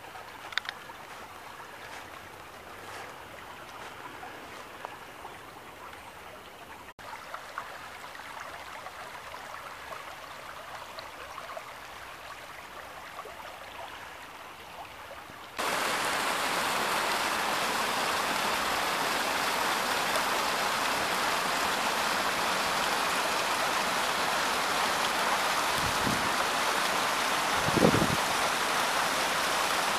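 Rain-swollen woodland creek flowing quietly, with a few faint clicks. About halfway through it gives way abruptly to the loud, steady rush of a small waterfall pouring over a boulder, with a brief bump near the end.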